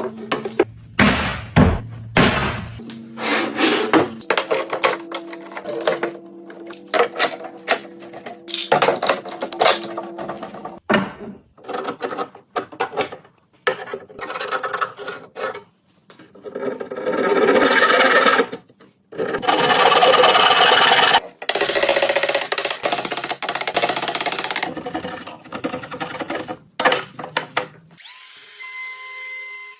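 Hand and power tools working wood, in irregular rasping and sanding strokes, with longer runs of noise about two-thirds of the way in, over background music.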